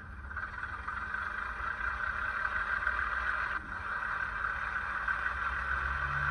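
Recorded diesel engine sound of a Ruston 165 shunter, running steadily as played by a sound-fitted OO gauge model's decoder through its small speaker.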